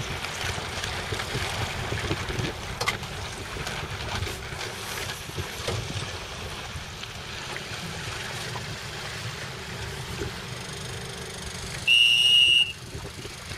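Wind buffeting the microphone over lapping water. About twelve seconds in, a single short, loud, high-pitched signal blast, the sailing race's start signal.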